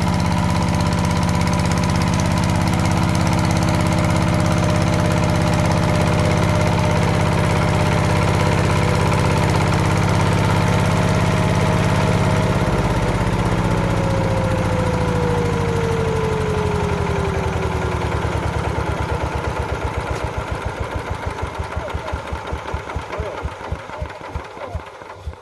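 Walking power tiller's single-cylinder diesel engine running steadily, then shut off about halfway through. A falling whine and chugs that slow and fade follow as it coasts down, and it stops at the end.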